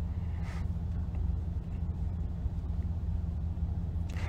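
Steady low rumble of a car's cabin while riding in the back seat, with a brief faint noise about half a second in.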